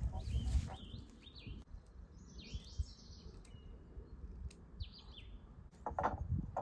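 Wild birds chirping in short, bending calls, with low thumps and handling noise near the start and again about six seconds in.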